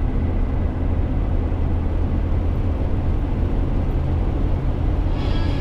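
Steady engine drone and road noise of a vehicle cruising on a wet highway, heard from inside the cab, with the hiss of tyres on the wet pavement.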